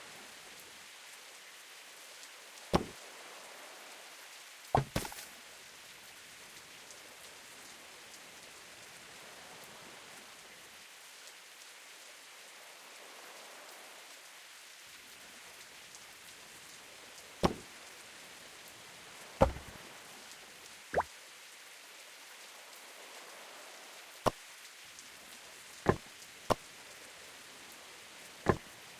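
Steady rain hiss with about ten sharp, irregularly spaced taps, like heavy drops striking a hard surface.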